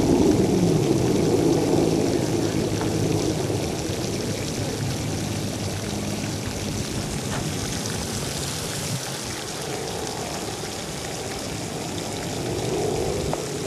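A steady rushing noise, loudest in the first few seconds and easing a little after, with a faint low hum under it.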